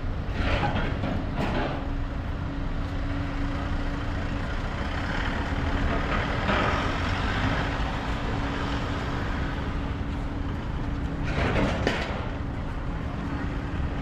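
Vehicle engines idling with a steady low hum under general engine noise, and a brief louder rush of noise about eleven seconds in.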